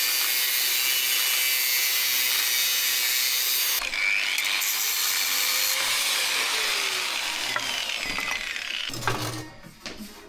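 Electric angle grinder with a cutting disc cutting through a steel exhaust pipe, a loud steady high whine and hiss that starts suddenly, dips briefly about four seconds in and resumes, then winds down about nine seconds in.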